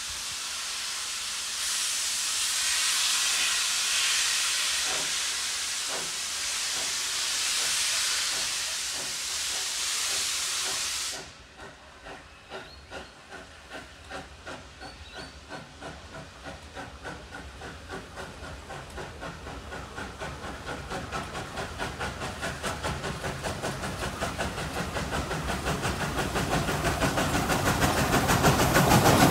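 Victorian Railways K-class 2-8-0 steam locomotive K183: a loud steady hiss of escaping steam that cuts off suddenly about eleven seconds in, followed by the rhythmic chuff of its exhaust, about two beats a second at first, growing louder and quicker as the engine approaches.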